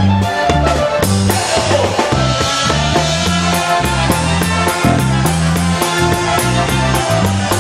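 Polka band playing live: a concertina carries the tune over drums and a bass line alternating between notes on the beat.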